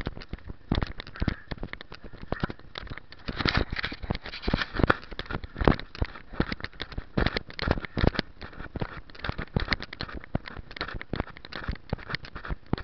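Dense, irregular crackling and knocking, many times a second: handling noise of the camera rubbing and knocking in its case.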